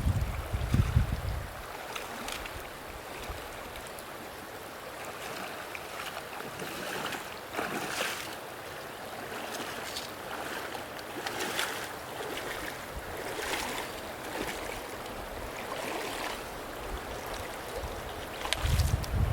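Wind blowing over open ground, buffeting the microphone with a low rumble for the first second or so, then a steady rush with brief crackles every second or two.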